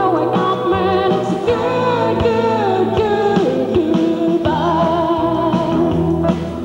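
Live band performing a song: a man sings over acoustic guitar, electric bass, pedal steel guitar and drums.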